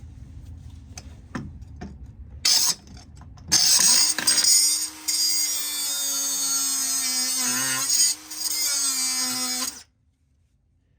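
A few metal clicks and knocks, then an electric angle grinder spins up and runs with a steady whine and a hiss, working steel, its pitch dipping briefly under load before it stops abruptly.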